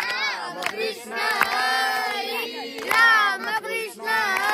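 Group of children singing a devotional bhajan loudly together, several voices on long held, wavering notes, with a few sharp hits in the beat and a short break about four seconds in.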